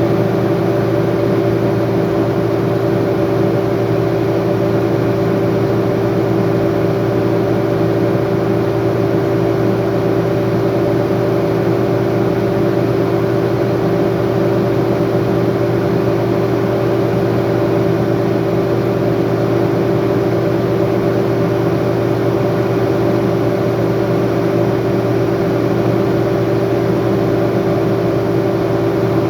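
Diesel engine of a heavy earthmoving machine running steadily under throttle, a constant loud drone.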